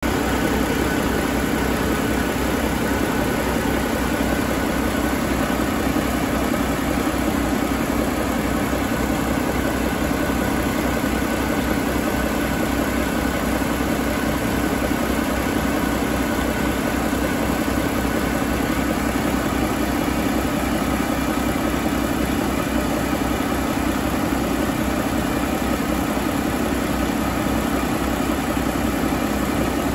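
2020 Paccar MX13 inline-six diesel engine idling steadily, with an even low pulsing throughout.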